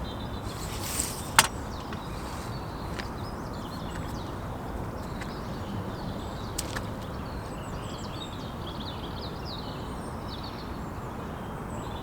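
Steady outdoor background noise with faint bird chirps, mostly in the second half, and a single sharp click about a second and a half in.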